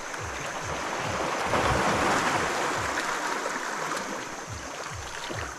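Water washing and sloshing, swelling louder about a second and a half in and easing off again, over a steady low rhythmic pulsing.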